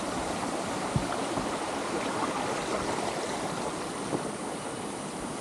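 A steady rushing hiss, with a faint tap about a second in.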